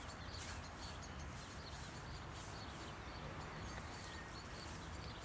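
Faint outdoor background noise, a steady low rumble, with distant bird chirps now and then.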